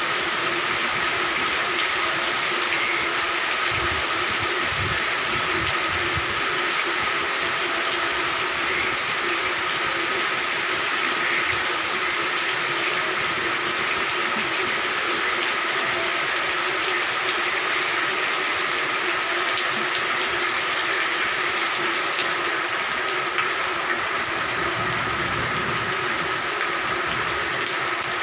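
Steady rain falling, with frogs calling continuously underneath in a dense chorus.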